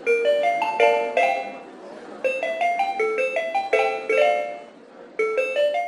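End-screen jingle: a quick tune of short, bright, bell-like mallet notes, played in three phrases with brief gaps between them.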